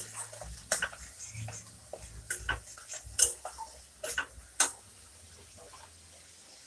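Spatula stirring spice paste in a stainless steel kadai, knocking and scraping against the pan in a handful of irregular clicks that stop about five seconds in.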